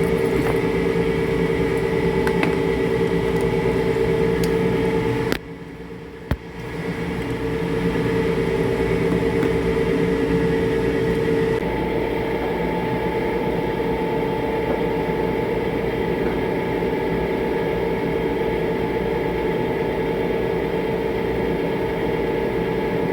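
Loud, steady mechanical drone with a steady hum from an air conditioning unit running overhead in a server room, the loud noise that the technician suspects is coming from the blower. The sound drops away for about a second some five seconds in, then returns, and its pitch mix shifts slightly about halfway through.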